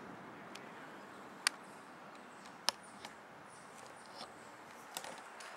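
Faint steady room hiss broken by a few sharp, isolated clicks, the two loudest about a second apart.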